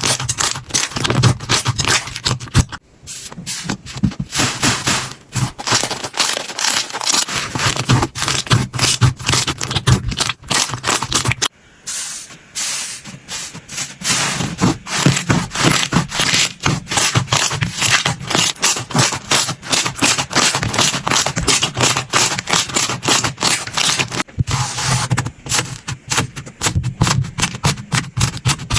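Slime being squished and worked by hand, a dense run of sticky crackling clicks and pops, with two brief lulls.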